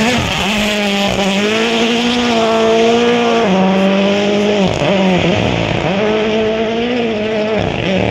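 Rally car engine running hard at high revs on a gravel stage, the note held high and dropping sharply and climbing back several times as it shifts gear.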